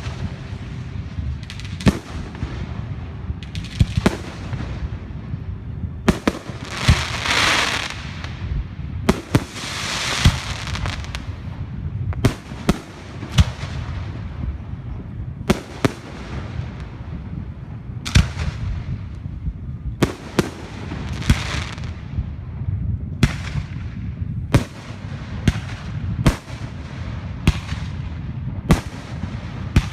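Fireworks going off: a rapid string of sharp bangs, roughly one or two a second, with longer crackling bursts about a quarter and a third of the way through.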